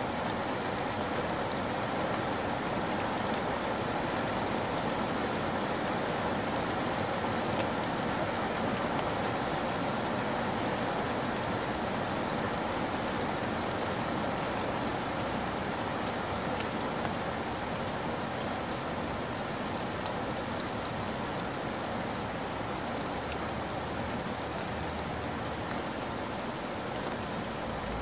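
Steady rain, an even hiss with scattered sharp ticks of single drops.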